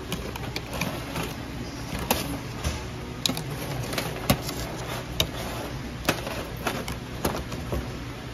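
Irregular sharp clicks and clacks of live blue crabs and metal tongs against a stainless steel tray, the loudest about four seconds in, over a steady low hum.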